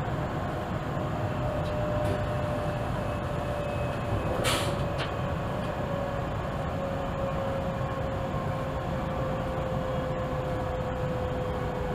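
ÖBB class 4124 electric multiple unit running, heard from the driver's cab: a steady rumble with a faint whine that slowly falls in pitch. A brief hiss sounds about four and a half seconds in.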